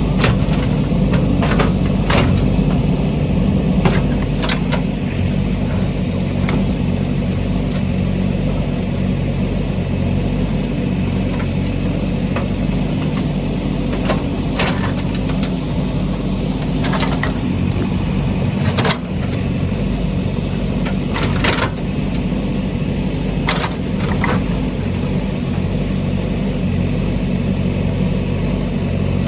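JCB backhoe loader's diesel engine running steadily under work, with a dozen or so sharp knocks and clanks scattered through it.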